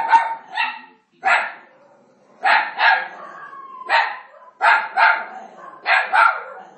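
Italian greyhound barking repeatedly, about ten short sharp barks, many in quick pairs.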